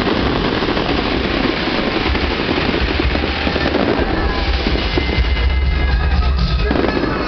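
Aerial fireworks going off in a dense barrage: continuous crackling and popping over a heavy low rumble of shell bursts that builds about two seconds in.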